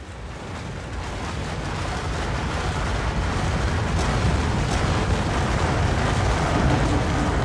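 Avalanche: a deep, rushing rumble of moving snow that builds steadily louder.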